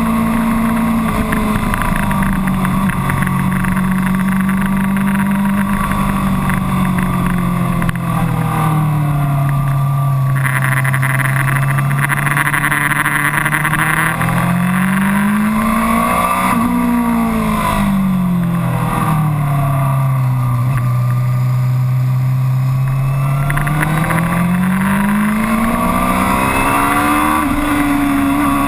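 Suzuki GSX-R600 K7 sportbike's inline-four engine running under way on the road. Its pitch sags as the throttle eases off for corners and climbs again as it is opened, rising twice, the second time near the end.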